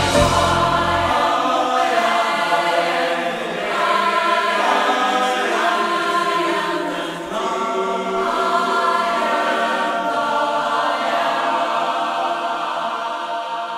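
Choir singing slow, held chords with no words. The deep bass drops out about a second in, and the singing grows softer near the end.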